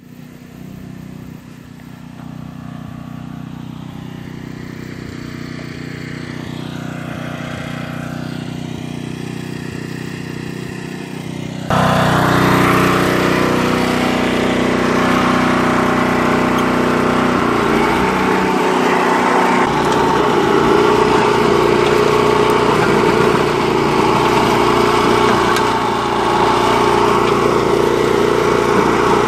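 Small petrol engine of a rotary hoe running steadily. About twelve seconds in it turns suddenly much louder and runs on as the hoe tills the soil.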